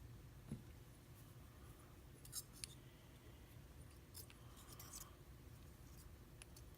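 Faint, scattered light metallic clicks from a Viro euro cylinder lock and small tools being handled while it is taken apart, with a pair of clicks about two and a half seconds in and a cluster around five seconds.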